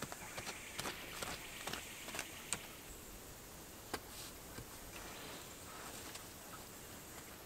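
Faint rustling and crackling of dry leaf litter and sticks being handled on the ground, with a few sharper clicks about two and a half and four seconds in.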